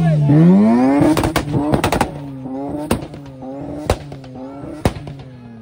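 Modified car engine revving up hard. A quick string of sharp exhaust bangs follows about a second in, then single loud pops roughly once a second as the revs drop, the whole sound getting fainter.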